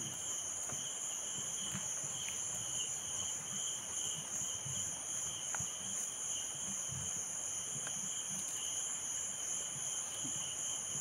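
Steady chorus of insects such as crickets, a continuous shrill drone at several high pitches, with faint soft rustles and taps of vine leaves being handled.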